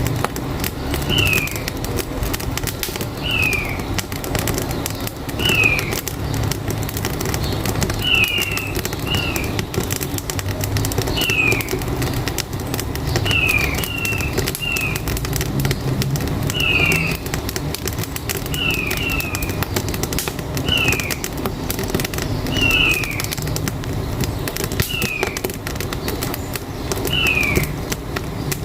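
Wood fire in a wood-burning stove crackling steadily over a low rumble, with a short high chirp falling in pitch about every two seconds, sometimes doubled.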